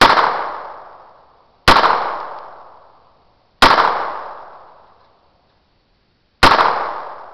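Four gunshots from a Beretta U22 Neos .22 LR semi-automatic pistol, irregularly spaced (the last after a longer pause), each sharp crack followed by a long echoing tail that dies away over a second or two.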